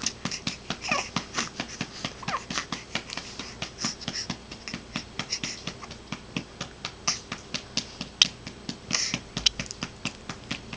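Steady, rapid patting on a baby's back, about four or five pats a second, to bring up a burp.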